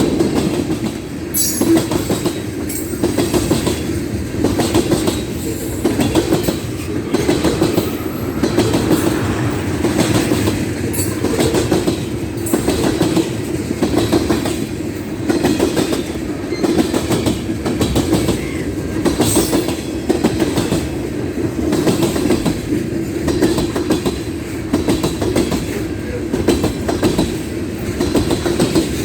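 Railroad cars rolling past at track side: a steady rumble with a regular clickety-clack of wheels crossing rail joints, and a few brief high-pitched wheel squeals.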